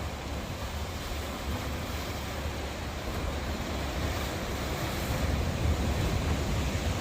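Ocean surf washing in steadily, with wind buffeting the phone's microphone as a low rumble; the surf grows somewhat louder from about four seconds in.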